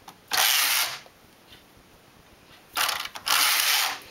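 Knitting machine carriage pushed across the needle bed twice, a rasping mechanical slide each pass, the second one longer. It is knitting rows of waste yarn to hold the live stitches.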